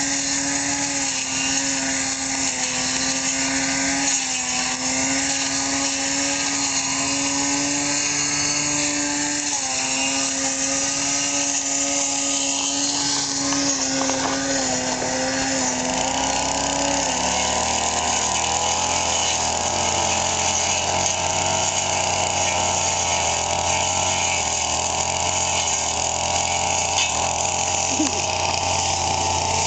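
Small two-stroke brush cutter engine running at high, steady revs while cutting weeds. About halfway through, its high pitch drops away and a lower, steady engine hum takes over.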